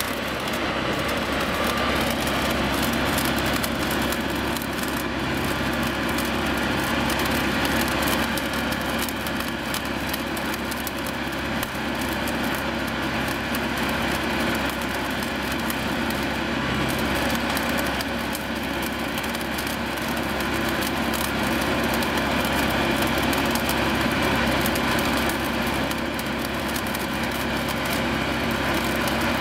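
Steady running of the Plasser & Theurer APT 1500 RA rail welding machine's engine and power unit while its flash-butt welding head flashes the rail ends at the joint, spraying sparks.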